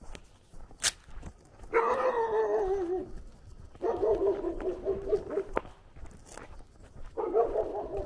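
A dog howling: three long, wavering calls of about a second and a half each, the first falling in pitch. A sharp click comes just before the first.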